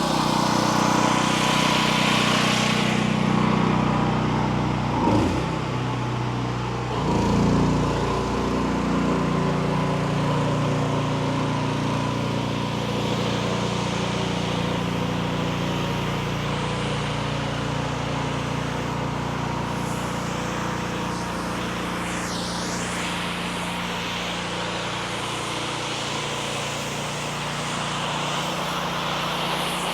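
Engine of a 5.5 gallon-per-minute pressure washer running steadily, with a brief shift in its sound about five and seven seconds in.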